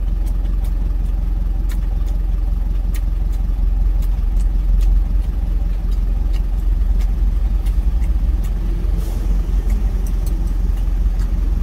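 Truck engine idling steadily, heard from inside the cab, with a few faint clicks of utensils against a steel food container.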